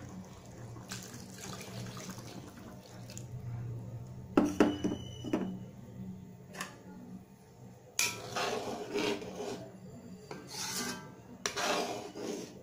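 Metal utensils clinking against the pan with a short ring about four to five seconds in, then a spoon scraping and rubbing against the metal pan in a series of short strokes as coconut milk is stirred into the simmering curry.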